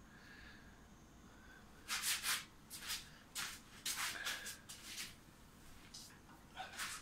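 Handling noise: a run of short, irregular scrapes and rustles, starting about two seconds in and coming again near the end, as wires and parts are moved about on the bench.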